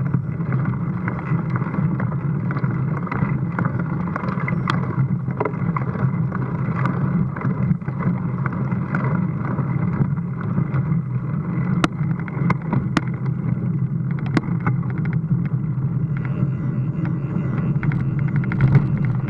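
Steady rumble and rattle of a mountain bike ride over rough village streets, heard through an action camera's housing, with a few sharp knocks from bumps.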